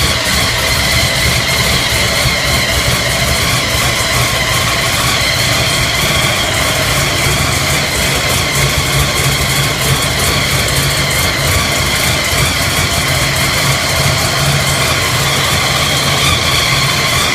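Engine idling steadily just after starting, with a high whine riding over the fast, even firing pulses.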